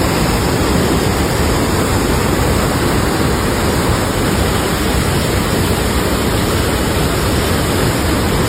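Waterfall: a steady, loud rush of falling water with no change in level.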